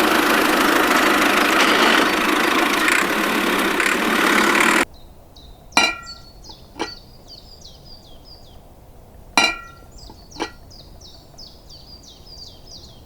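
A loud, steady rushing noise that cuts off abruptly about five seconds in. It is followed by sharp metallic clinks, mostly in pairs a second apart and each ringing briefly, over a quick repeated high chirping.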